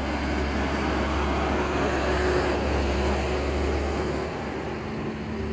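A vehicle driving past: a low rumble that swells to a peak about two to three seconds in and eases off about four seconds in.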